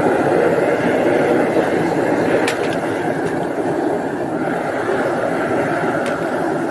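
Homemade waste-motor-oil furnace running, a loud steady rush of burner flame and blown air. Two faint clicks of aluminium cans being pushed into the furnace, about two and a half seconds in and near the end.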